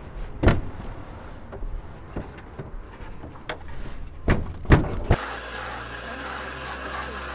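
Manual window crank and door of a Nissan 240SX being worked: low rattling with four sharp clunks, one about half a second in and three close together near the five-second mark. Background music comes in just after the last clunk.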